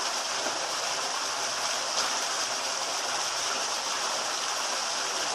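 Steady rushing of running water, an even hiss with no splashes or other distinct events.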